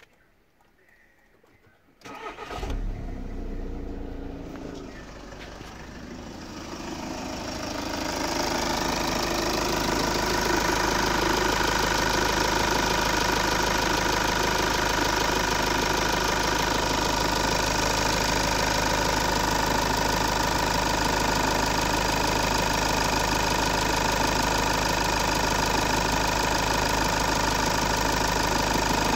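VW 2.0 TDI CBBB four-cylinder common-rail diesel starting about two seconds in and settling into a steady idle. From about eight seconds on it is heard louder, from the open engine bay.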